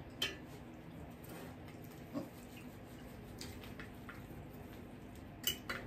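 Quiet eating sounds at a table: a few scattered soft clicks and taps, a second or two apart, with a small cluster near the end.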